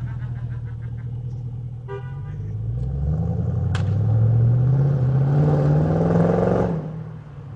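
Mercedes SL's 5.4-litre supercharged V8 running through a Longlife exhaust: idling, then revved, its pitch rising over about two seconds. The revs are held high and loud for a couple of seconds, then drop back as the throttle is released near the end.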